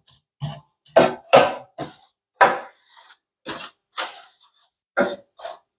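Hand brush sweeping dirt off an old, very dirty window cornice in short scrubbing strokes, about ten strokes at an uneven pace.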